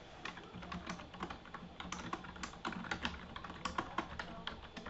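Computer keyboard typing: an irregular run of clicking keystrokes, several a second.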